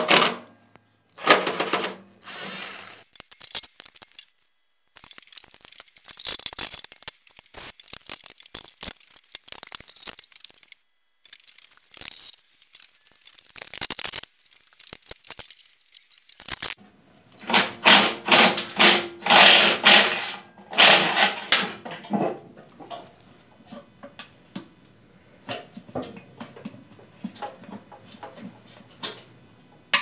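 Cordless power driver spinning out the bolts around a chipper shredder's housing, in repeated bursts of a few seconds each with a rapid rattling. The longest and loudest run comes past the middle. Light metallic handling clatter fills the gaps.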